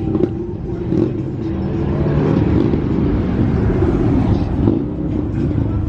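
Car engine running loud with a low rumble, swelling a little in the middle seconds.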